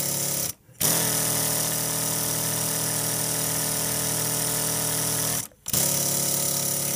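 Graham TVR1A twin-cylinder vertical reversing model steam engine running at speed on compressed air: a steady mechanical whir with a hiss of exhausting air. The sound cuts out abruptly for a moment twice, about half a second in and about five and a half seconds in.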